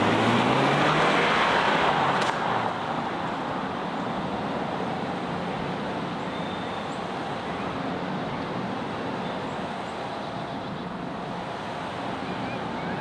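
Lexus NX SUV accelerating away, its engine and tyres loud for about two seconds. The sound then drops sharply to a fainter steady noise as the car drives off into the distance.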